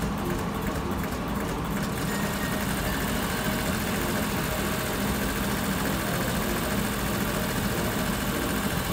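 Induction motor and its coupled load machine running steadily on a test bench under direct torque control: a steady hum with a broad whirring hiss over it.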